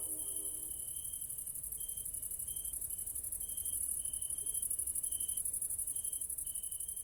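Insects chirping: a fast, high pulsing buzz runs steadily throughout, with shorter, lower cricket trills starting and stopping irregularly over it.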